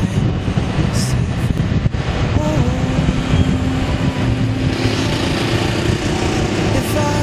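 Vehicle on the move: an engine running steadily under heavy wind and road noise, with its pitch shifting a little now and then.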